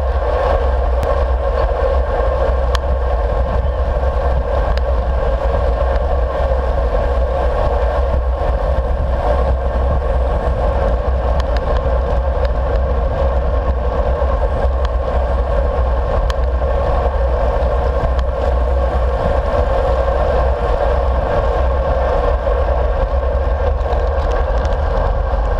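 Steady wind rumble on a handlebar-mounted action camera's microphone as a road bike rolls along at speed, mixed with tyre and road noise.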